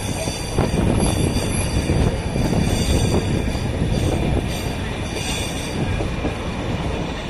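Nilgiri Mountain Railway (Ooty toy train) coach running along the track, heard through the open coach window: a steady rumble of wheels on rail, slightly louder from about half a second in.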